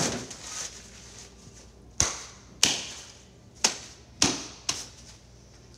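Five sharp slaps of hands, irregularly spaced, beginning about two seconds in.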